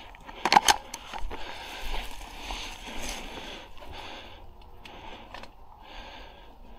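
A person breathing heavily, each breath a hiss coming about once a second, with rustling of grass and gear. There are two or three sharp clicks about half a second in.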